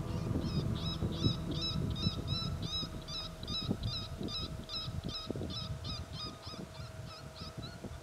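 Predator call playing a fast, steady string of high-pitched distress cries, about three a second, that stops near the end. Wind rumbles underneath, with a few soft knocks.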